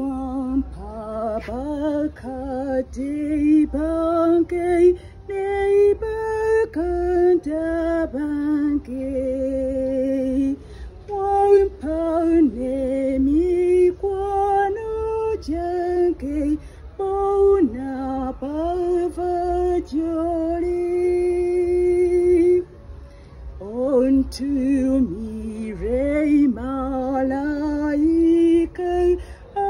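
A woman singing a slow Luganda gospel song of thanks, holding long wavering notes, with a short break about three-quarters of the way through.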